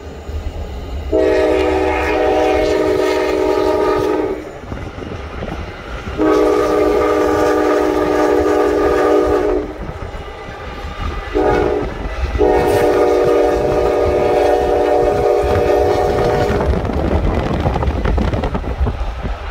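Norfolk Southern diesel locomotive's multi-tone air horn sounding the grade-crossing signal: long, long, short, long, the last blast held about four seconds, for a private crossing. A steady low rumble runs underneath.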